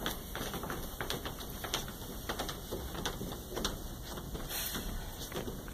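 Footsteps of several people walking across a hollow wooden stage platform: a run of irregular taps and knocks.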